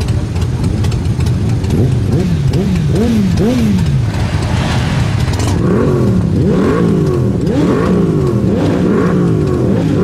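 Several motorcycle engines idling and being revved in repeated short throttle blips, the pitch rising and falling each time. From about halfway through, more engines rev at once, overlapping.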